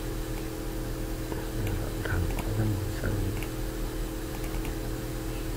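Steady low electrical hum of a recording setup, with a few faint computer mouse clicks and a brief low murmur in the middle.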